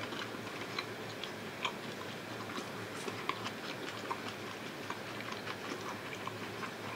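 A person chewing a mouthful of beef stir-fry and rice, faint irregular soft clicks and smacks of the mouth over a low steady room hum.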